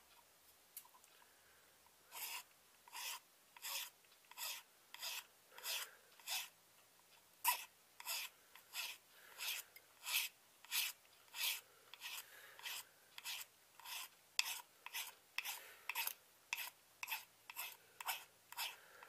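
Hand file rasping across the edge of a knife handle scale in short, regular strokes. They start about two seconds in and come about one and a half a second, a little faster in the second half.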